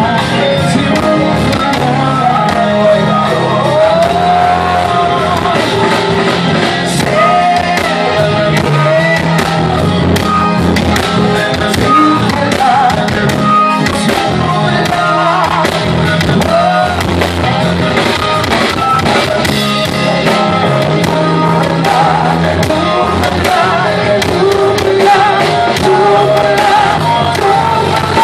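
Live blues-rock band playing loudly: electric guitar and keyboards over a steady low bass line, with a voice singing into the microphone.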